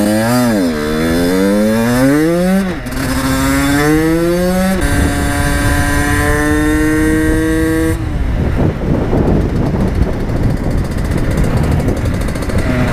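A 50cc supermotard motorcycle's engine accelerating through the gears: the pitch rises, drops at a shift a little before three seconds in, rises again and shifts near five seconds, then holds. About eight seconds in the engine tone fades under a steady rush of wind noise.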